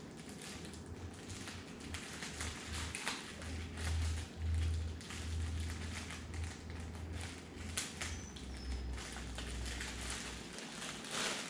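Speaker playing music at low volume, heard mostly as deep bass notes that swell and fade, with scattered faint clicks and crackles over them.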